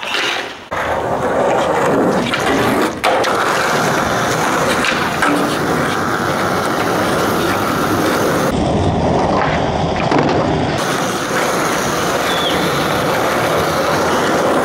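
Skateboard wheels rolling on smooth concrete, a steady rolling noise, with a few sharp clacks of the board in the first three seconds.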